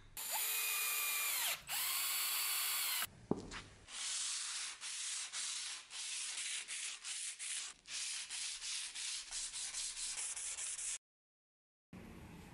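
Hand-abrading a hardened steel Bowie knife blade clamped on a board in a vise, rubbing it to clean and brighten the steel. Two long strokes squeal on the steel, then a run of shorter rasping strokes, about two a second and quickening, that cuts off suddenly near the end.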